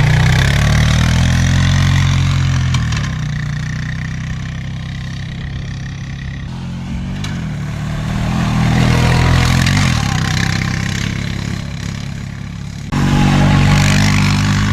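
Four-wheeler (ATV) engine running while being ridden, its pitch rising and falling as the throttle opens and eases off, with a sudden jump in loudness near the end.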